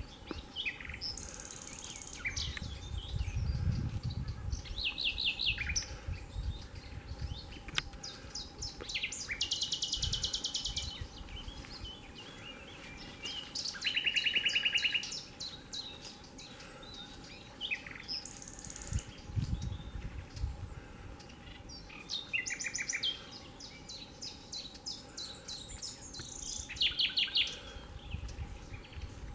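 Nightingale singing: a string of varied phrases separated by short pauses, many of them fast runs of the same note repeated, some very high and thin, one lower and fuller about halfway through.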